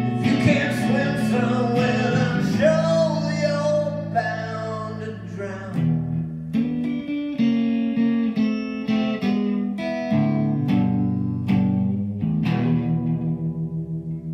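Stratocaster-style electric guitar played through an amplifier: closing lead lines and single notes, ending on a last chord that rings with a regular pulsing wobble and starts to fade near the end.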